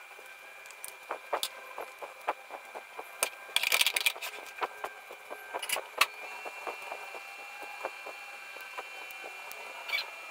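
Small scissors snipping at tulle netting printed with plastic dots: irregular sharp snips and clicks, with a denser flurry of snipping and rustling about three and a half seconds in. A faint steady high tone runs underneath.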